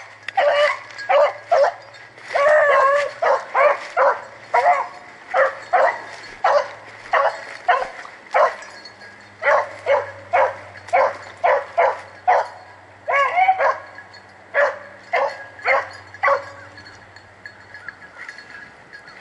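Rabbit hounds barking and yipping on the trail of a swamp rabbit: a long run of short calls, about two a second, some bending up and down in pitch, which stops near the end.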